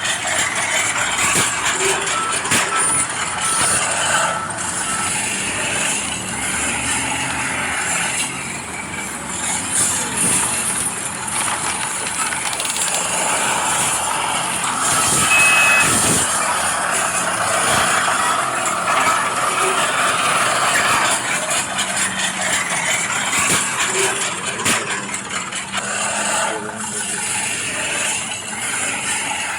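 Radio-controlled scale construction machines at work: small motors and gears whirring with dirt and gravel scraping and clicking. About two seconds in, a steady high tone holds for about three seconds, and a short high beep sounds near the middle.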